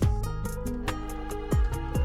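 Background music with a steady beat: held chords over quick ticking percussion, with a deep falling bass hit at the start and another about one and a half seconds in.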